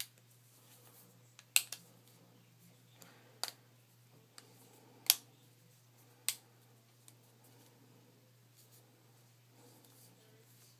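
Plastic pieces of a hard-shell iPhone case snapping into place along the phone's sides: a handful of sharp, irregularly spaced clicks, the loudest about one and a half seconds and five seconds in.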